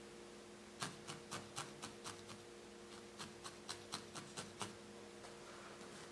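A felting needle stabbing repeatedly into a small tuft of wool, making faint dry clicks about four a second that stop after about four seconds.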